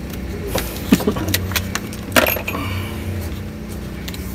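Handling noise from the taped end of a boat's steering cable and its metal fittings: a few short, sharp clicks and clinks, the loudest about a second in and again just after two seconds, over a steady low hum.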